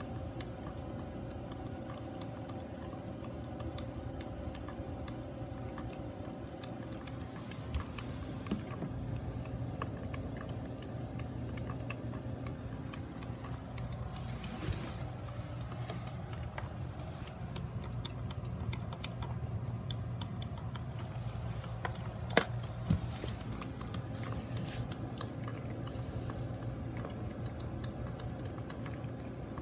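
Mr. Coffee BL5 4-cup drip coffee maker brewing: a steady low hum under a constant patter of small crackles and clicks, with a few sharper clicks.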